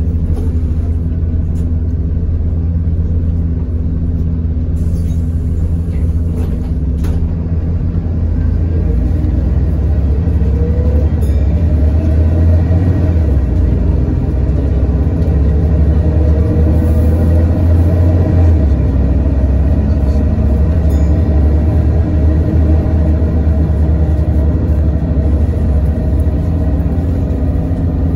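City bus engine and road rumble heard from inside the passenger cabin while the bus drives along, a steady deep drone that grows slightly louder about ten seconds in.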